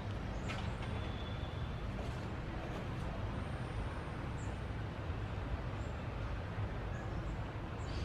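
Wind rumbling steadily on the microphone, with a few faint, short, high bird chirps now and then.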